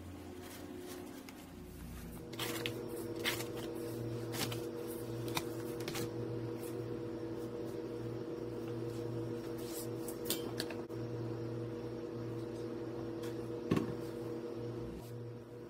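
A handful of sharp clicks and light knocks from utensils and ingredient containers being handled around a stainless steel mixing bowl, over a steady low hum that sets in about two seconds in.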